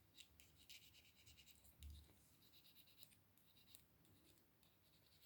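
Faint, intermittent scratching of a steel paperclip being rubbed against a magnet to magnetise it, with a soft low bump about two seconds in.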